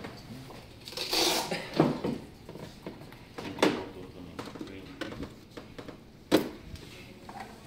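Metal cover panels inside an anesthesia machine being handled: a few scattered knocks and clatters, the sharpest about six and a half seconds in, with quiet talk now and then.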